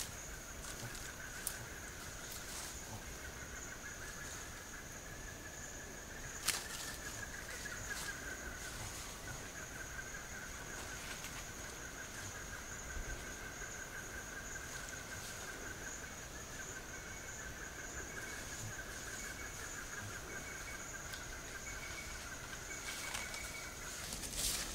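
Forest ambience of insects buzzing: a steady high-pitched drone alongside a lower, slightly wavering buzz that stops just before the end. It is broken by scattered small snaps and rustles, with one sharp crack about six and a half seconds in.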